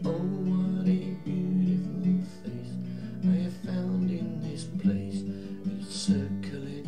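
Steel-string acoustic guitar with a capo, fingerpicked in a steady pattern: the thumb plays bass notes under plucked notes on the middle strings, and the bass note changes a few times as the chords change.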